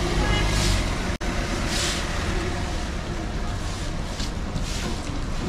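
Wet city street noise: tyres hissing past on a rain-soaked road over a steady low traffic rumble, swelling about two seconds in and again near the end. The sound drops out for an instant about a second in.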